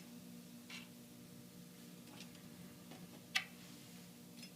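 A few light metallic clicks as washers are handled and slid onto a shopping cart's rear axle rod, the sharpest click a little over three seconds in, over a faint steady hum.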